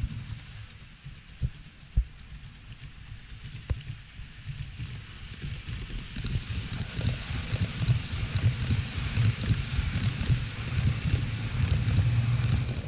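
N-gauge model train, the KATO E257 series 2000 set, running along the track close by: a low running rumble of the wheels and motor with rapid clicking of wheels over the rail joints, growing louder from about five seconds in as the train comes past. A few single sharp clicks come in the first four seconds.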